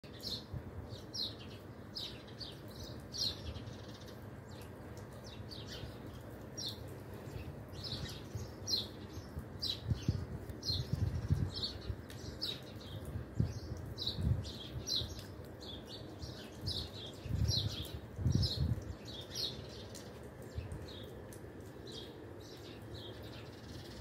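A flock of small birds perched in trees, chirping: short high chirps one after another, about one or two a second, throughout. Low rumbling thumps come and go around the middle.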